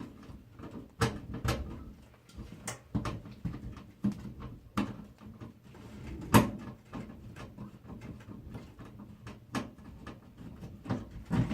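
Irregular clicks, knocks and scrapes of hardware being handled in and around a computer case during a motherboard install, with the loudest knock about six and a half seconds in.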